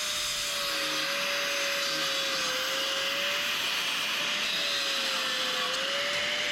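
Small power grinder grinding steel, a steady high whine over a harsh hiss, its pitch dipping briefly about two and a half seconds in and again near the end as the tool is pressed into the work.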